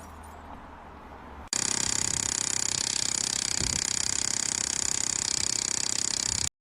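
A machine rattling rapidly and steadily, starting suddenly about a second and a half in and cutting off abruptly near the end.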